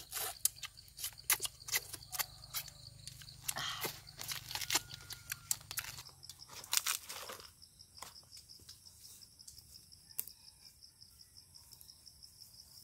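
Close crunching and chewing of people eating with their fingers, with sharp clicks and rustles. From a little past halfway the handling sounds die away and a steady high chirring of crickets carries on.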